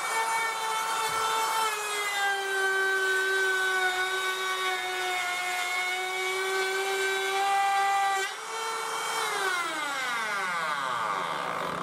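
Makita cordless trim router running as it cuts along the joint of a laminate floor board, its whine dipping a little in pitch under load. About eight seconds in it is switched off and spins down with a falling whine.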